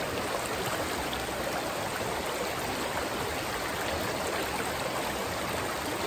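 A small mountain stream rushing steadily over rocks and riffles, running high with rain and snowmelt.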